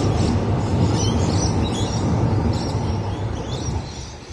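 A-City 4000 class electric multiple unit passing over a girder railway bridge: a steady low rumble that fades over the last second as the train clears. Birds chirp over it.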